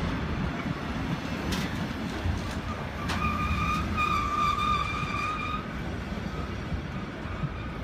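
A train running on the line: a steady low rumble with two sharp clicks, then a high steady tone for about two seconds from the middle.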